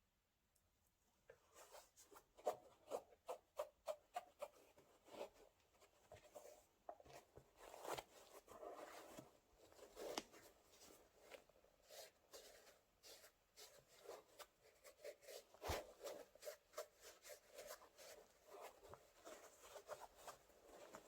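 Faint rustling, scraping and light taps of hands handling sneakers and their packaging, starting about a second and a half in.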